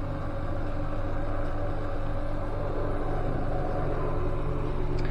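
A steady low mechanical hum with a few held tones, unchanging throughout.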